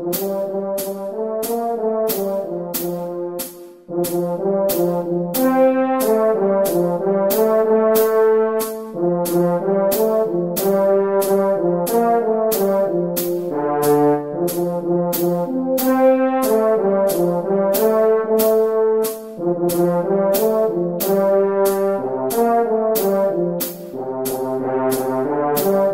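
French horn playing a melody of short repeated notes over a backing track with a steady beat of about two clicks a second, with a brief break for breath about four seconds in.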